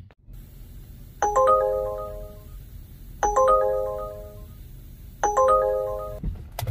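Electronic chime like a phone ringtone: a quick run of rising, ringing notes that hold and fade, played three times about two seconds apart.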